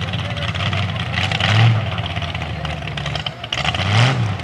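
Mega truck engine revving in short blips, the pitch rising and falling twice: once about a second and a half in and again near the end.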